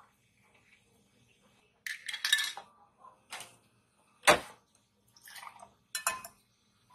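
Glassware clinking and knocking on a perforated stainless steel drip tray: a few scattered short clinks and rattles, with one sharp knock a little past halfway the loudest, and a glass set down near the end.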